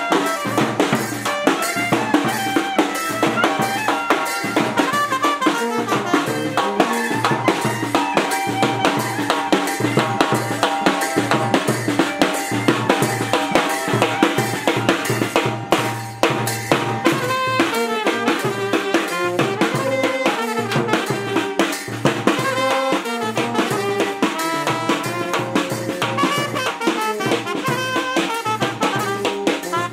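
Military band playing traditional Nepali naumati baja-style music: a bass drum beaten with a stick and small hand cymbals clashing keep up a fast, steady beat, while brass (trumpet and euphonium) carries the tune.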